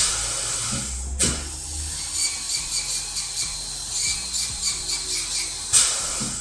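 Dental handpiece whining as it grinds down the occlusal contacts on the front teeth, a selective grinding to relieve the bite. The drill breaks briefly about a second in and stops just before the end.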